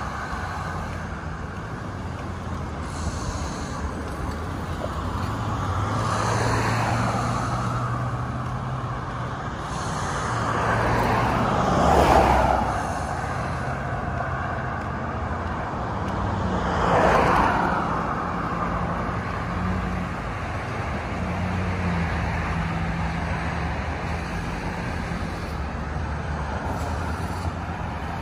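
Road traffic on a multi-lane road: a steady hum of tyres and engines, with vehicles passing close one after another. Three of them swell loud and fade away, about six, twelve and seventeen seconds in, the one in the middle loudest.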